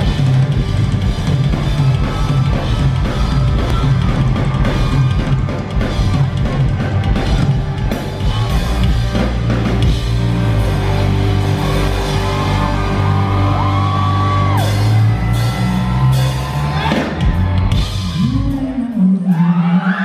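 Live rock band playing loudly: electric guitars, bass guitar and drum kit together. Near the end the bass and drums stop and shouting follows.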